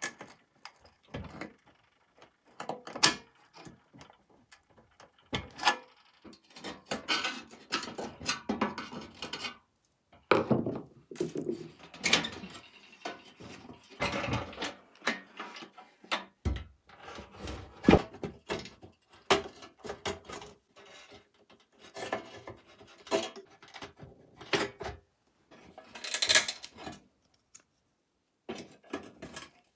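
A screwdriver scraping and prying at the bent tabs of an old sheet-steel toy truck, with irregular sharp metal clicks and knocks as parts are worked loose and handled.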